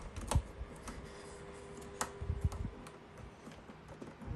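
Sparse light clicks and taps of metal control knobs being pushed onto the shafts of an audio unit's front panel and knocking against its metal chassis.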